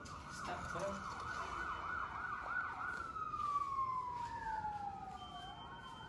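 Emergency vehicle sirens: a fast yelp warbling about four times a second, then switching to a slow falling wail. A second siren tone overlaps it from about four seconds in.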